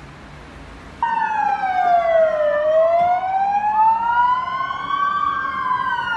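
Emergency vehicle siren in a slow wail, cutting in suddenly about a second in, its pitch sliding down, then up over a few seconds, then down again. Low traffic rumble underneath.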